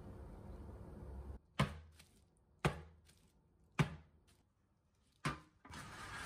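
Four sharp knocks about a second apart: a foil-wrapped cake pan full of sponge batter tapped down on a wooden counter to knock the air bubbles out of the batter.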